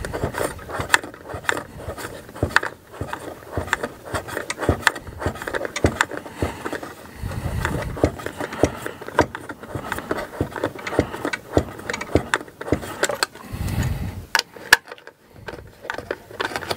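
A 2.5 mm hex screwdriver driving a screw by hand into a 3D printer's belt holder. Irregular clicks and scraping from the tool and screw, with a few sharper knocks, as the screw binds and works through its threads.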